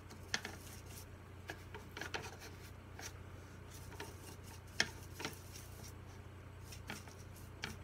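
Watercolour brush bristles scrubbing and swirling in the paint pans of a watercolour palette, mixing yellow and brown into a sand colour, with scattered light taps of the brush against the palette.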